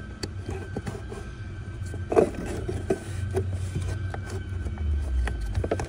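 Plastic cabin-filter cover of a 2011 BMW X3 being pushed and fitted into its housing under the dashboard: scattered light clicks and scrapes, with one louder knock about two seconds in, over a low steady hum.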